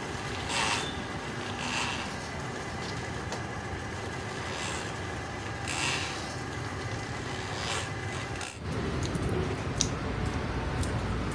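Electric drain-cleaning machine running, its spinning spiral cable being fed by hand into a clogged water pipe: a steady mechanical whir with short scraping rasps every second or so. About eight and a half seconds in the sound changes abruptly to a louder low rumble with a single sharp click.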